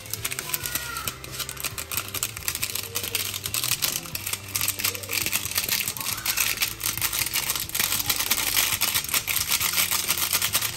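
Plastic seasoning sachet crinkling in a hand, a dense run of rapid small crackles, as it is torn open and squeezed out over a pot of boiling broth.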